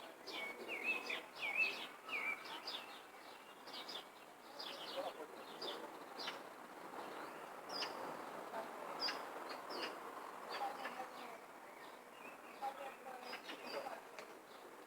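Several wild birds chirping and calling, with quick repeated chirps throughout and a few warbled notes early on.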